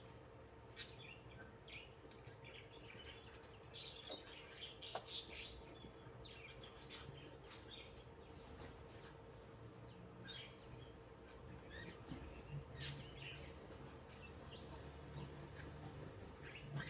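Small caged birds chirping, faint, short scattered chirps throughout, over a faint steady hum.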